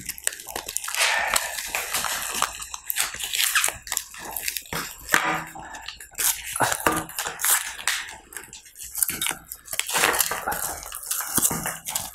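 Plastic chocolate-bar wrappers crinkling and rustling as they are fumbled open without thumbs, mixed with biting and chewing of the KitKat Dessert Delight chocolate. Irregular crackles throughout, with no steady rhythm.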